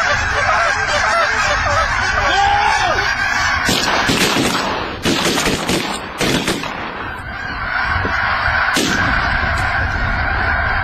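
A flock of greylag geese honking continuously, broken in the middle by several shotgun shots in quick succession and one more a few seconds later.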